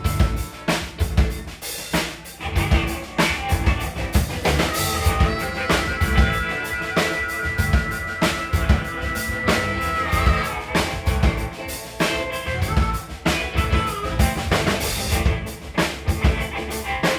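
Live blues band playing an instrumental passage with no singing, the drum kit's kick and snare hits prominent. A high note is held for several seconds in the middle.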